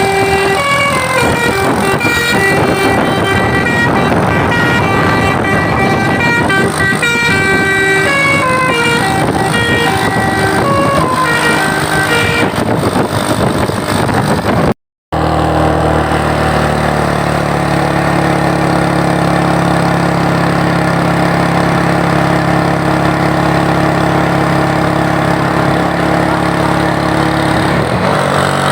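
Telolet basuri bus horn playing a tune of quick stepping notes for about fifteen seconds. After a brief break it gives way to a steady vehicle drone with several held pitches.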